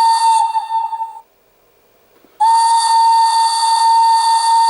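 Locomotive signal whistle played by the ESU LokSound 4 sound decoder through the small loudspeaker of an H0-scale Class 150 model: a loud, steady whistle tone with an airy hiss. One blast ends about a second in, and a second blast starts about two and a half seconds in.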